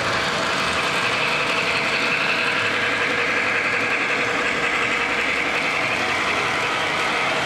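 O-gauge model freight train led by a Lionel Legacy C&O 2-8-2 Mikado steam locomotive running on three-rail track: a steady mechanical clatter and rumble of wheels and gear drive.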